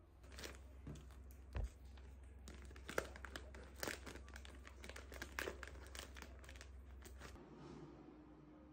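A clear plastic packaging bag crinkling and crackling as it is handled, with a dull thump about a second and a half in. A low steady hum underneath cuts off near the end.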